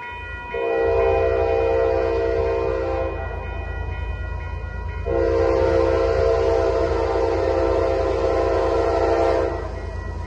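Air horn of an approaching diesel freight locomotive, CP 8757, sounding two long blasts, the second longer than the first, over a steady low rumble.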